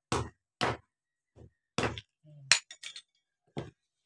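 Hammer blows knocking the fan off the end of a tile-cutter armature: three solid knocks about half a second to a second apart, then a few lighter, brighter metallic clinks.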